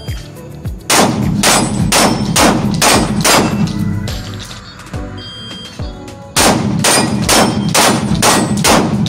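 Two fast strings of about six 9 mm pistol shots each from a CZ P-10 SC, roughly two shots a second, echoing in an indoor range hall, with steel plate targets clanging as they are hit. The first string starts about a second in, the second about six seconds in.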